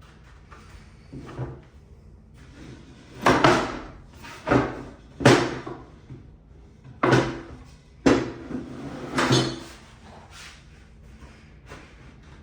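Six sharp knocks and clatters, spaced about a second apart, as drawer-box pieces are handled and set together during a glue-up.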